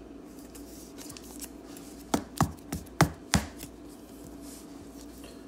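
A trading card being put into a clear plastic card holder by hand: five sharp taps or clicks of the plastic against the table, about a third of a second apart, a couple of seconds in.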